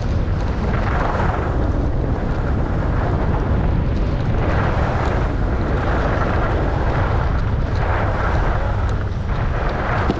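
Wind buffeting the microphone as a steady loud rumble, with the hiss of skis carving across snow swelling and fading every second or two, turn by turn.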